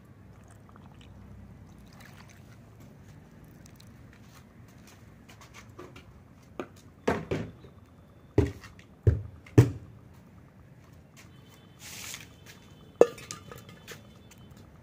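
Wet laundry being shaken out and handled: a run of sharp snaps and slaps around the middle, one more near the end, and a brief hiss just before that last snap.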